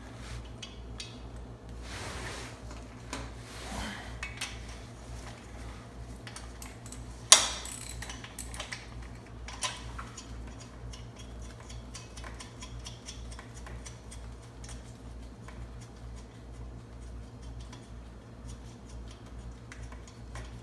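Metal-on-metal clinks and scrapes of a socket wrench and steel nuts and washers as cylinder-head nuts are worked off an air-cooled VW engine, over a steady low hum. One sharp clank about seven seconds in is the loudest, with a smaller one a couple of seconds later.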